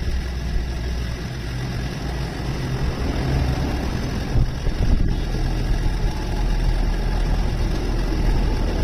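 A motor or engine running steadily, a continuous low hum.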